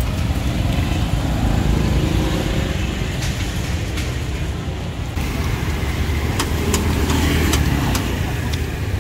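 Street traffic: motor vehicle engines running and passing in a steady low rumble, with a few sharp clicks and taps in the second half.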